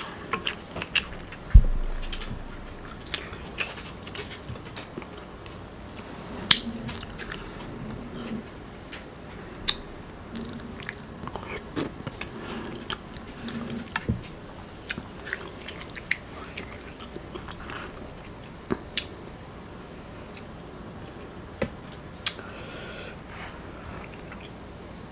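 Close-miked eating sounds: chewing and biting of Chinese takeout food, with scattered sharp clicks of chopsticks and utensils. One loud thump comes about one and a half seconds in.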